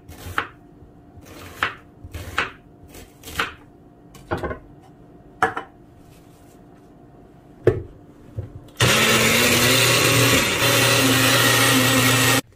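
Chef's knife chopping a red onion directly on a granite countertop, a series of sharp chops about a second apart. Then a small personal blender runs steadily for about four seconds, grinding the onion to a purée, and cuts off abruptly near the end.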